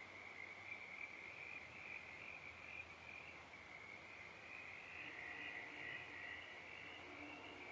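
A faint, steady chorus of frogs calling, a dense high trilling that runs on without a break. A faint low hum joins near the end.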